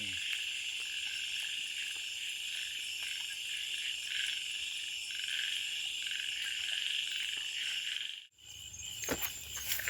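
A chorus of frogs calling together in a steady, continuous din. It cuts off abruptly near the end.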